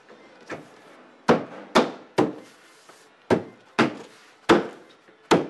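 An open hand slapping a plywood ceiling panel upward to seat it in its Fastmount PC-RF1 clips: a faint knock, then seven sharp wooden thuds in uneven pairs over about four seconds.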